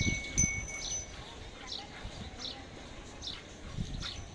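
Milk squirting by hand into a steel bucket in regular strokes, slightly more than one squirt a second. A brief high ringing tone sounds near the start.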